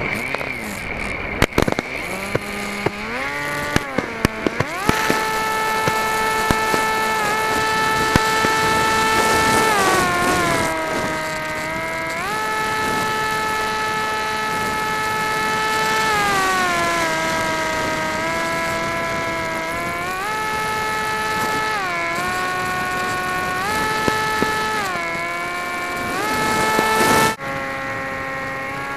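A few sharp firework pops and crackles, then the RC flying wing's motor and propeller heard from the on-board camera: a steady whine that steps down and back up in pitch several times as the throttle changes. Near the end it drops off abruptly and carries on at a lower pitch.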